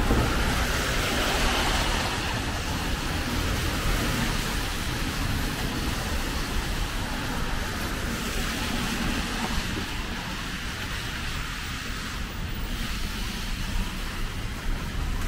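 Road traffic on a rain-soaked street: tyres hissing on wet asphalt over the running of car engines. Loudest in the first few seconds as vehicles pass close by, then easing off.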